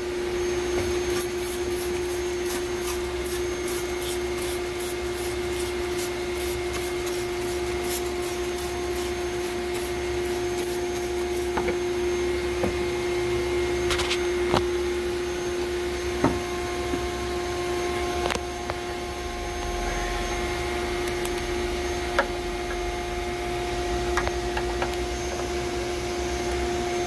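Shop vac running steadily with a constant hum, blowing air into the car's exhaust to pressurise it for a leak test. Over the first eleven seconds or so a trigger spray bottle squirts soapy water in quick strokes, about three a second.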